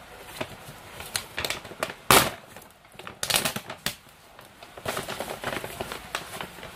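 Kraft-paper shopping bag rustling and crinkling as it is pulled open and rummaged through, in irregular crackles with a loud crackle about two seconds in.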